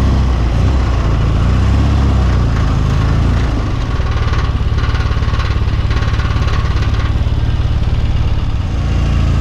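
Norton Commando 850's parallel-twin engine running as the motorcycle is ridden at low speed, with wind rush on the microphone. From about three and a half seconds in the engine settles into an even, pulsing low-speed beat, with some crunching from the tyres on gravel.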